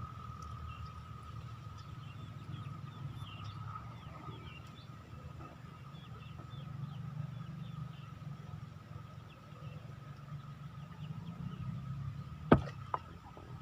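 Outdoor ambience at a fishing pond: a steady low hum and a steady high whine, faint bird chirps, and a sharp click about twelve and a half seconds in, followed by a smaller one.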